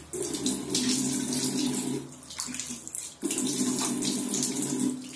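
Water running from a bathroom tap into a sink. The flow sound drops for about a second a couple of seconds in, then runs on.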